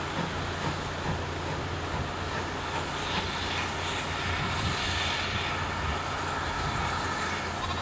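Steam locomotive hauling a train, its exhaust and the running of the train blending into a steady rumble with a hiss over it.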